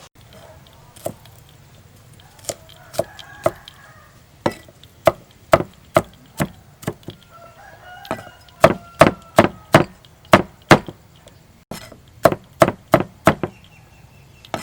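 A knife or cleaver chopping on a wooden cutting board: a few scattered strokes at first, then a steady run of loud chops about two a second, a brief pause, and more chops near the end.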